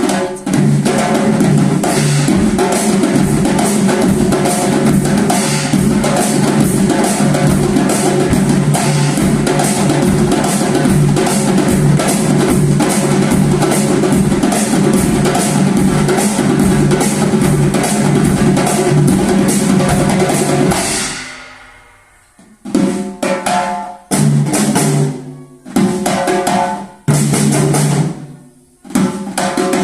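An ensemble of drummers playing a fast, dense rhythm together. About two-thirds of the way through it dies away, and then comes back as short unison bursts of playing separated by brief silences.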